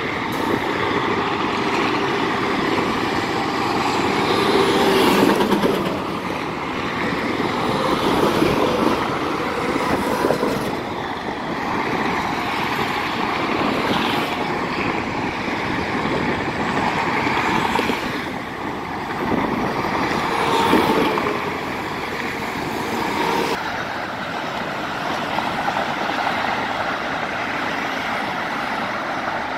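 Freeway traffic: a steady rush of tyres and engines from cars and trucks, swelling several times as vehicles pass close by.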